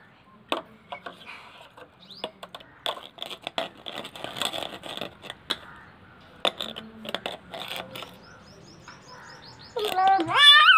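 Toddler splashing and slapping water in a plastic tub: a scattered run of short splashes and taps. Near the end the child breaks into a loud wailing cry.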